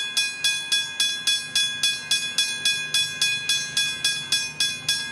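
Westinghouse hybrid level crossing bell ringing steadily at about three strikes a second, with a clear ringing tone on each strike, the sign that the crossing is active.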